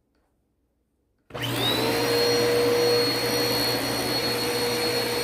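Vacuum cleaner switched on about a second in: its motor whine rises quickly to speed, then runs steadily.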